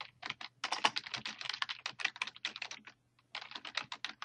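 Typing on a computer keyboard: a fast, uneven run of keystrokes with a brief pause about three seconds in.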